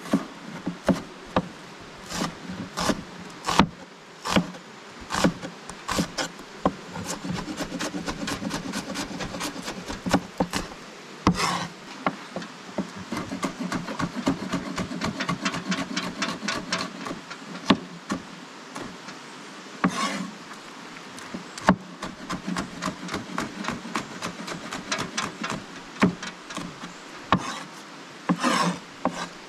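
A knife chopping onion and other seasoning vegetables on a cutting board: a series of sharp knocks, sometimes single and sometimes in quick runs of several strikes a second. A low buzz runs under the middle stretch.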